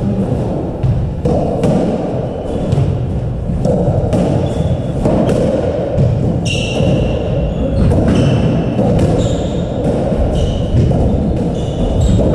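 Squash rally: the rubber ball thudding off rackets and the walls again and again, with court shoes squeaking on the wooden floor, the squeaks coming in from about halfway through.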